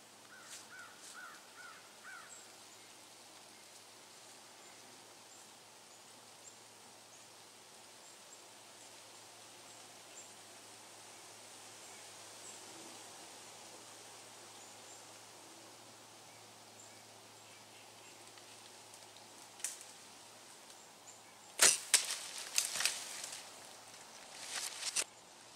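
Faint woodland ambience with a few short high chirps near the start; about 22 seconds in, a Mathews Halon 6 compound bow is shot with a sharp snap, followed by a quick cluster of further clicks and rustles.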